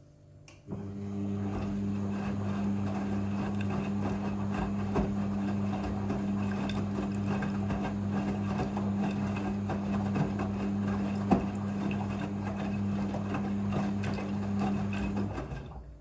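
Midea front-loading washing machine working through its rinse: a steady electric hum with rushing water over it. It switches on about a second in and cuts off near the end.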